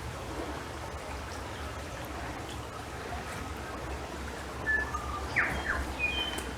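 A forest bird calling: a few short whistled notes at different pitches and one quickly falling chirp, a little past halfway through, over a steady faint background hiss.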